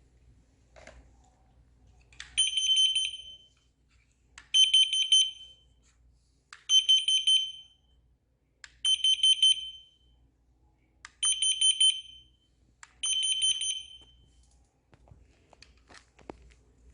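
An electronic alarm beeper sounds in six bursts of a high, rapidly pulsing beep, each about a second long and about two seconds apart.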